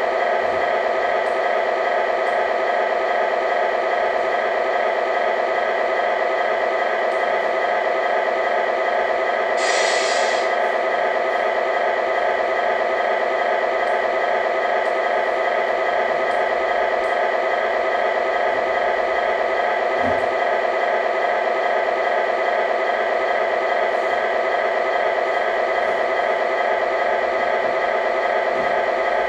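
Electronic sound unit of a Tamiya 1/14 Volvo FH16 RC truck playing a steady, looping diesel truck engine idle. A short hiss comes about ten seconds in.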